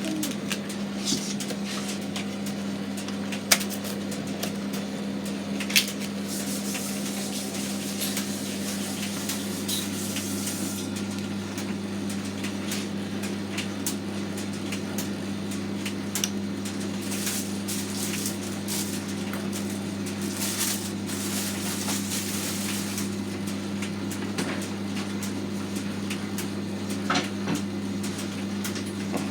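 Hotpoint FETV60 tumble dryer running, recently fitted with a new bearing: a steady motor hum, with a few sharp knocks scattered through.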